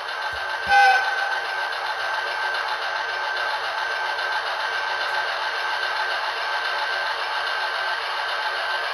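HO-scale model electric locomotive running on sectional track: a steady rushing noise with a high, even whine. A short horn-like toot sounds about a second in.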